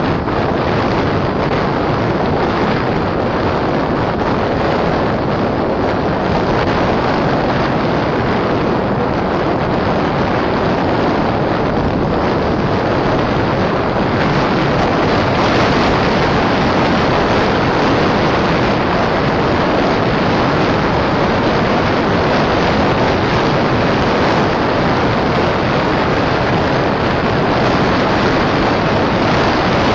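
Wind noise buffeting the microphone of a camera moving fast downhill on an open road: an even, loud rushing that grows a little louder about halfway through.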